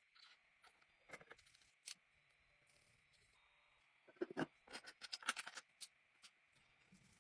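Small metal parts and tools clicking and scraping as they are handled, with scattered single clicks and a quick flurry of clinks about four seconds in.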